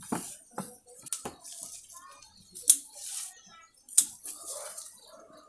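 Household scissors snipping through the soft green stems of a bhringraj (false daisy) plant: several sharp snips at irregular intervals, with leaves rustling in between.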